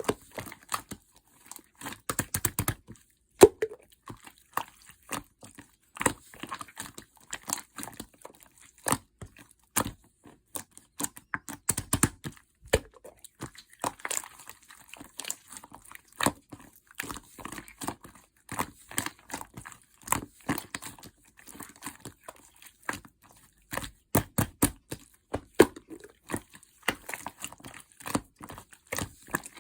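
Custard-pudding-textured slime being squished, poked and stretched by hand, giving a dense, irregular run of sharp clicks, pops and crackles.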